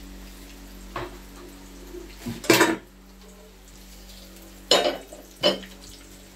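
Metal kitchen tongs clanking against a frying pan as a crumbed chicken schnitzel is turned in shallow oil, over a steady low sizzle of the frying. There are four clanks: one about a second in, the loudest about halfway through, and two close together near the end.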